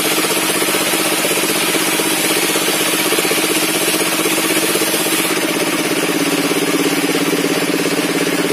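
Engine-driven circular saw bench running steadily, a loud machine drone with a fast even pulse.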